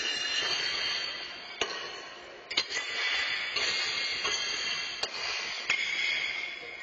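Steel horseshoes clanking against metal stakes and each other on several courts: about five sharp metallic clangs, some with a ringing tail, echoing in a large hall.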